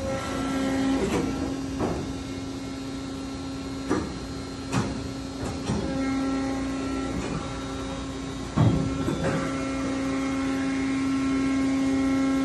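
Nissei FV560 injection molding machine running through its cycle: a steady mechanical hum with clunks and knocks as the mold opens and closes, the loudest knock a little past eight seconds in.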